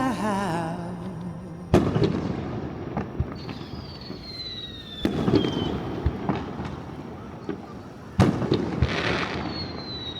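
Aerial firework shells bursting: three sharp booms about three seconds apart, each followed by crackling. A thin whistle falls in pitch twice between the bursts.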